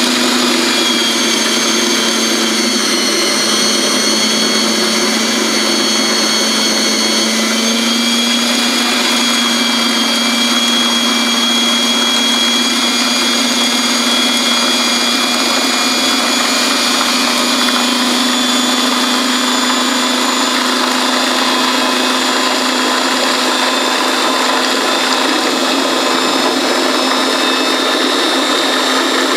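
Food processor motor running steadily at high speed, a continuous motor whine, blending chopped hazelnuts and almonds as a melted chocolate and milk mixture is poured in; its pitch rises slightly about eight seconds in.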